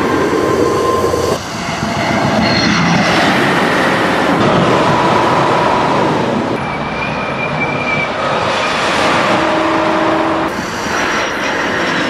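Shanghai Transrapid maglev train rushing past on its elevated guideway: a loud, steady rushing noise with brief high whining tones. It changes abruptly three times.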